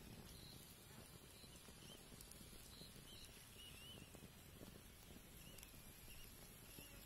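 Near silence: the faint crackle of a small twig-and-leaf fire burning, with a few faint high chirps.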